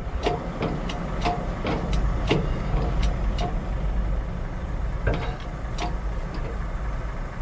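Low, steady rumble of an idling engine, with scattered light metallic clicks and taps at irregular intervals.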